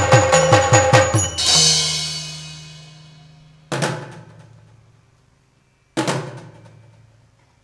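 Yakshagana percussion accompaniment of drums and cymbals playing a fast, even rhythm of about six strokes a second. It ends in a loud crash that rings away under a held low drone. Two single loud strikes follow about two seconds apart, each left to fade out.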